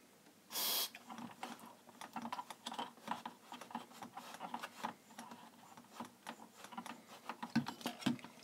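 A short hiss of aerosol contact cleaner being sprayed into an amplifier's open potentiometers about half a second in. It is followed by a run of faint, irregular clicks and scrapes as the potentiometer knobs are turned back and forth to work the cleaner in, curing their scratchiness.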